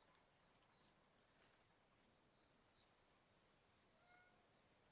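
Near silence with faint insects chirping: a steady high trill and a fainter higher pulse repeating about once a second.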